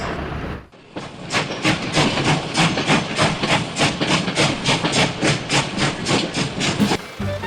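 Steam train chugging: a steady rhythm of hissing chuffs, about three to four a second, starting after a brief pause and cutting off just before the end.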